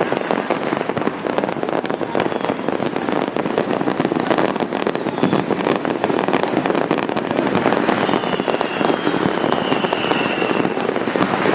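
Dense, unbroken crackling and popping of countless firecrackers and fireworks going off at once, with a faint falling whistle about two-thirds of the way through.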